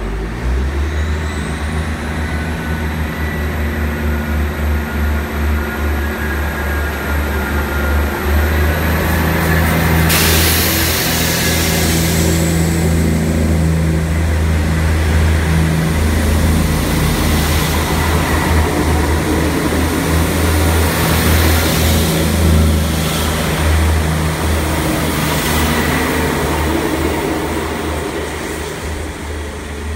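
Class 159 diesel multiple unit's underfloor Cummins diesel engines pulling away from the platform under power, a deep steady drone with a high whine rising in pitch over the first few seconds. It grows louder about ten seconds in as the coaches pass close, with clattering from the wheels, then fades as the train moves away.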